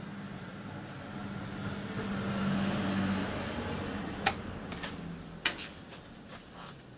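Steady hum of a small electric motor that swells in the middle and fades near the end, with two sharp clicks about a second apart and a few lighter ticks from small parts being handled.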